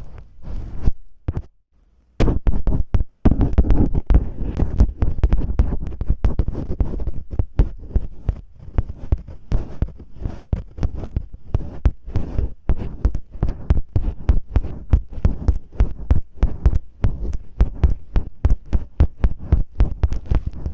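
Masking tape rubbed and scratched against a microphone in ear-cleaning-style ASMR: dense, rapid, irregular scratching and crackling strokes with a heavy, muffled low end, pausing briefly about two seconds in.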